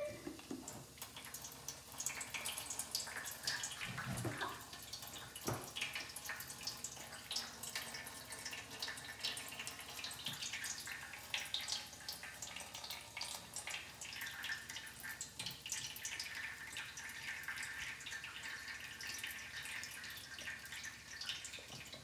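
A thin stream of water from a straw trickling and splashing steadily into shallow water in a metal baking tray, pushed out of a plastic bottle by the air from a balloon fitted over its neck.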